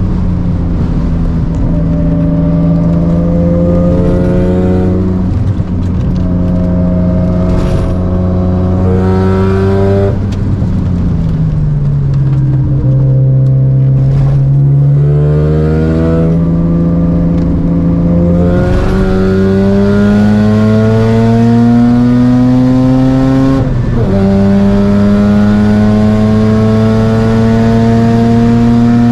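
Mazda RX-7 FD3S's single-turbo 13B rotary engine under hard acceleration, its pitch climbing through the gears with upshifts about 5 seconds in and near 24 seconds. Around 10 to 14 seconds in it drops back as the car slows, then pulls again.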